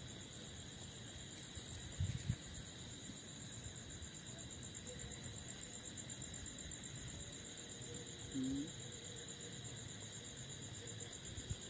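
Crickets trilling steadily at night: a high-pitched trill with a second, lower insect tone beneath it. There are a few soft thumps, one about two seconds in and another near the end.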